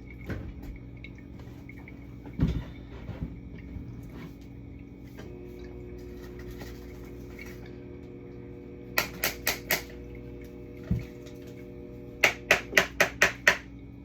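Household items being handled while a fridge is cleaned out: a couple of dull thumps and two quick bursts of sharp clicks or taps, four and then six in rapid succession, over a steady hum.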